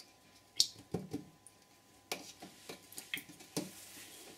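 A few light clicks and taps, spread out, as paint tubes and small plastic pots are picked up and handled on a work table.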